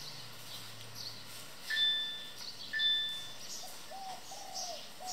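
Two clear bell-like chime notes on the same pitch, struck about a second apart, each ringing briefly before fading.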